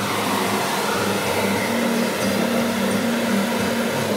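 Handheld hair dryer blowing steadily, drying a wet watercolour painting.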